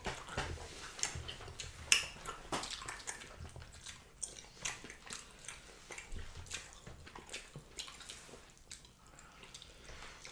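Wet eating sounds: chewing and lip smacking while fish in pepper soup is picked apart by hand, a run of scattered soft clicks and squelches with one sharper knock about two seconds in.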